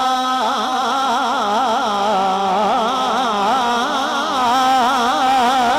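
Male naat reciter singing a long held melismatic phrase into a handheld microphone, his pitch wavering up and down in quick ornamental turns without a break.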